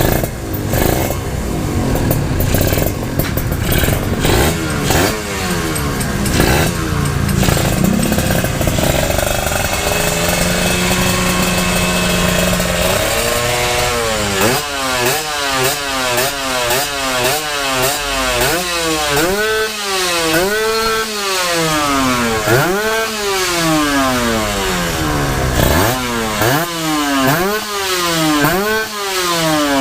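Two-stroke motorcycle engine, first running unevenly with a steady hum, then from about halfway through revved over and over, its pitch rising and falling about once a second.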